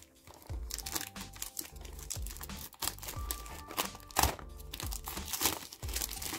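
Clear cellophane shrink-wrap crinkling and tearing in irregular crackles as it is peeled off a small cardboard toy box, with background music underneath.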